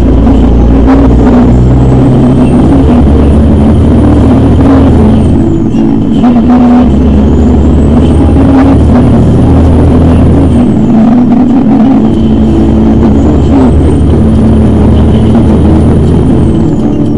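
Heavy truck's engine running loud from inside the cab as it pulls along the highway. A high whine climbs with the revs and drops away sharply three times, about every five to six seconds, as it changes up through the gears.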